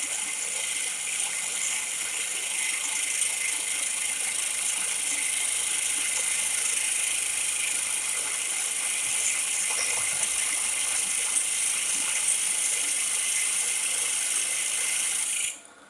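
Drill press spinning a homemade cast-aluminum pulley blank while a tool held against it turns it down: a steady, high-pitched hiss of cutting that stops suddenly near the end.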